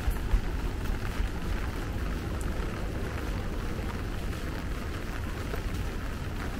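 Steady rain falling on wet paving, with a low rumble underneath and a few scattered drip ticks.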